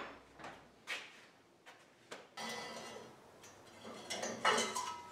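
A few faint knocks and scrapes, like things being handled or shifted: short sharp clatters in the first two seconds and a louder scuffle near the end.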